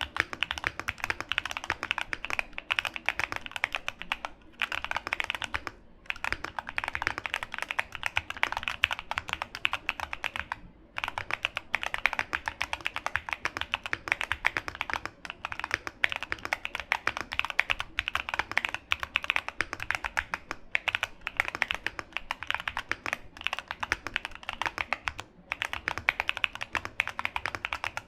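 Continuous fast typing on a Bakeneko65 mechanical keyboard: cast aluminium case, FR4 plate with PE foam, hand-lubed Coffee Chip Ice Cream tactile switches, clipped and Holee-modded stabilisers. Each keystroke gives a sharp clack, with a few brief pauses in the typing.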